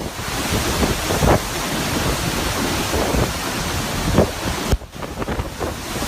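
Storm wind from a hurricane buffeting the microphone, a dense rushing noise that swells and eases in gusts, with a brief sudden drop just before the end.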